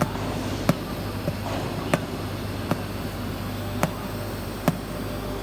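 Automatic TIG pipe welding machine running: a steady electrical hum with sharp clicks at uneven spacing, about one a second.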